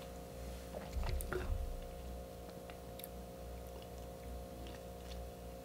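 Quiet mouth sounds of a person tasting a sip of drink, swallowing and smacking the lips, with a few soft knocks about a second in, over a steady low hum.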